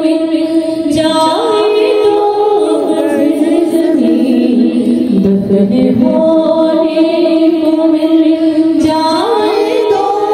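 Music: a woman's singing voice gliding over steady held tones.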